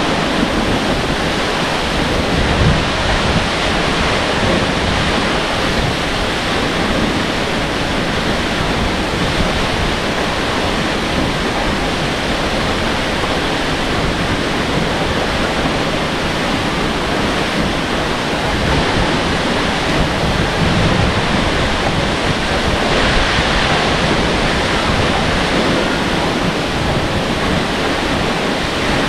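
Water falling from a tall waterfall: a loud, steady rush with no break.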